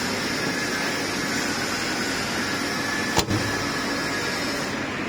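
Steady hum and hiss of a laser cutting machine's running fans and auxiliary equipment during shutdown, with a single sharp click about three seconds in. Near the end the highest part of the hiss cuts off, as if one unit has been switched off.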